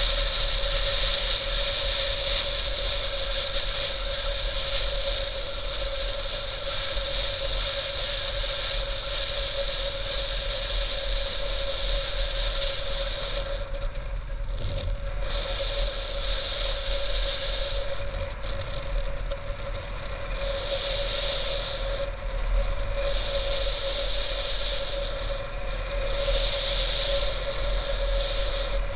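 Motorcycle engine running steadily while riding, with wind rumbling on a helmet-mounted camera's microphone.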